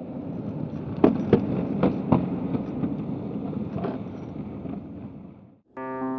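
Skateboard wheels rolling on a concrete garage floor, with four sharp clacks of the board between about one and two seconds in and a fainter one near four seconds. The rolling fades out and piano music begins just before the end.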